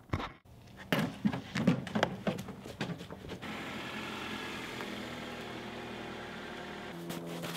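A run of sharp knocks and rustles in the first few seconds, then a Toyota Corolla's engine running steadily as the car rolls up and idles.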